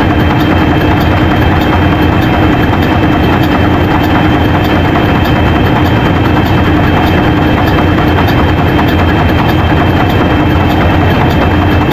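Large inline marine diesel engine running steadily in a ship's engine room: a loud, constant drone with a steady hum and a light ticking about twice a second.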